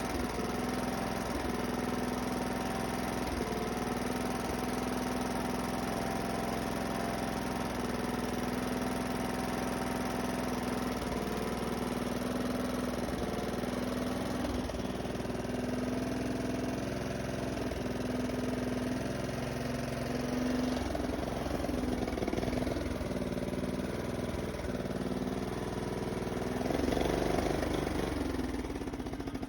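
Snapper mower's small engine running steadily on fresh oil, with a brief rise in engine speed near the end.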